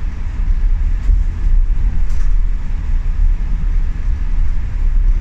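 A steady low rumble of bus travel: engine and road noise heard from inside a moving bus.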